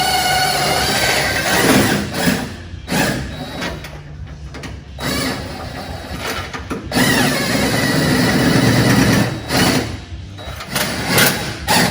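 Power impact wrench running in several bursts of a few seconds each, spinning off a nut on the rear end.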